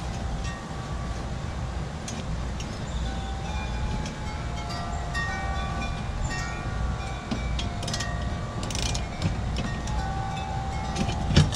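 Socket ratchet and metal tools on a lawn mower's blade bolts: a few sharp metal clicks in the second half, the loudest just before the end. Under them runs a steady low rumble with scattered short ringing tones.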